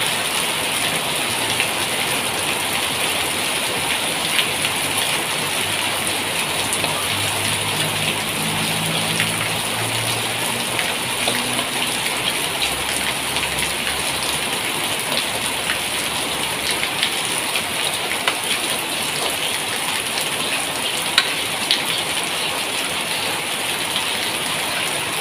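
Curry paste frying in coconut milk in a wok: a steady sizzle with fine crackling as it is stirred with a spatula, cooked until the coconut milk splits and releases its oil.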